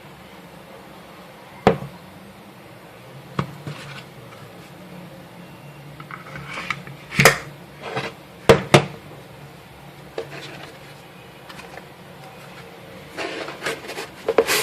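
Sharp metallic clicks and knocks at irregular intervals, about a dozen in all, with the loudest pair about two thirds of the way in and a quick cluster near the end: an airsoft CO2 replica of the Taurus PT 24/7 pistol being handled.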